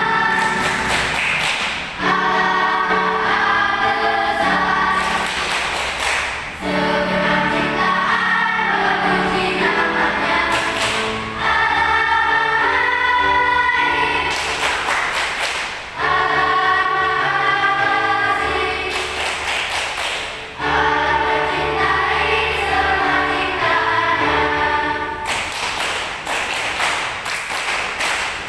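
A school choir singing in several-part harmony, in phrases that break off briefly about every four to five seconds.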